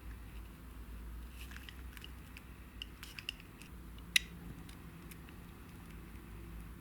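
Scissors cutting into a ball of wound tape, heard only faintly: a few small clicks and crinkles, then one sharper snip about four seconds in, over a low steady hum.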